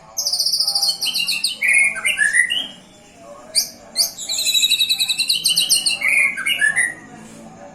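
White-rumped shama singing: two long phrases of rapid, high trills, each ending in lower sliding notes.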